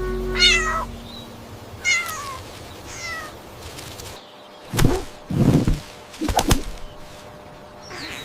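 Cat meowing: three short falling meows in the first three seconds, the last one fainter. A few sharp knocks follow around the middle.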